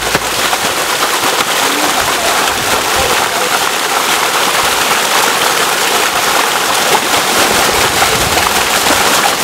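Water gushing steadily out of a pipe outlet and splashing over rocks into a channel, a loud, even rush.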